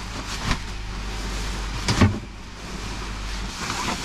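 Nylon spinnaker sailcloth and its sock rustling and sliding as they are pulled out of a sail bag, with two short knocks, the louder about two seconds in. A low hum underneath cuts out near the end.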